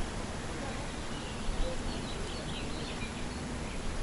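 Steady outdoor noise with a low rumble, and a few faint bird chirps about halfway through.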